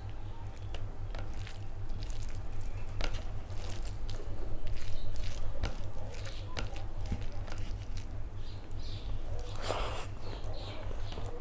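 Wet squishing and small clicks of bare fingers breaking boiled eggs and mixing curry into rice on a plate, over a steady low hum. There is a brief louder mouth sound about ten seconds in, as the first handful is eaten.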